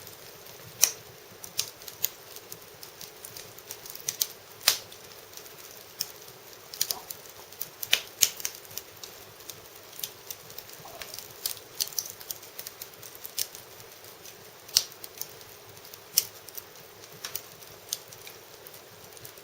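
Wood fire crackling in an irori sunken hearth: sharp, irregular pops and snaps, one or two a second and uneven in loudness, over a faint steady background.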